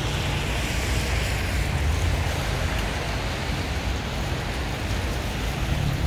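Steady city street traffic noise over a low rumble, with a passing vehicle's tyre hiss swelling and fading in the first couple of seconds.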